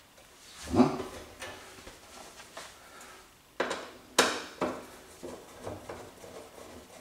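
Metal parts of a TV wall bracket and its screws being handled and screwed at the back of a TV: a dull thump about a second in, then a few sharp clicks and small ticks.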